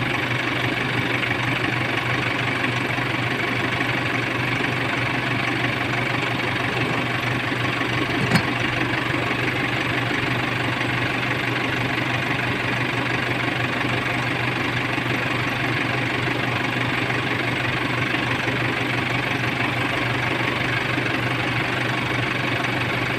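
Kia Sportage CRDi common-rail diesel engine idling steadily, with one short click about a third of the way through.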